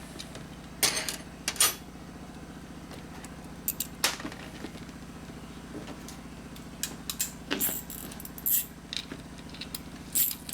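Loose metal bolts and washers clinking and clacking as they are handled, a handful of separate clacks spread through, over a steady low hum.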